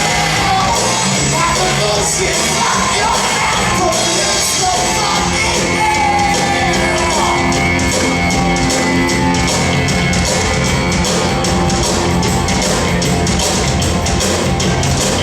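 Live rock band playing loud in a hall, with shouted, strained singing over the first half and drums and cymbals keeping a steady beat.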